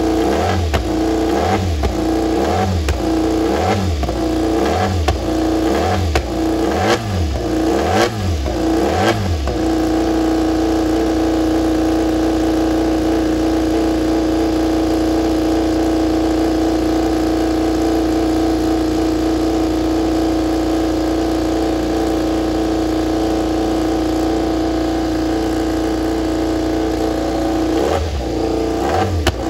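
KTM RC16 MotoGP bike's V4 race engine warming up on a paddock stand. The throttle is blipped in quick succession, a sharp rise and fall of revs about every three-quarters of a second, for the first nine seconds or so. The engine is then held at steady revs with an even note, and the blipping starts again near the end.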